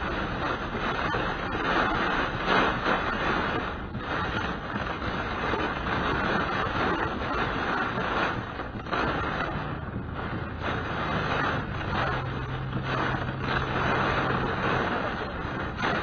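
Inside a moving car in a storm: a steady hiss of rain and tyres on the wet road, over the low hum of the engine, which holds a steady low tone for a few seconds past the middle.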